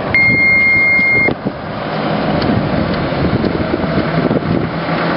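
Scania fire engine's diesel engine pulling away and approaching, with wind on the microphone. A steady high-pitched tone sounds for about a second near the start.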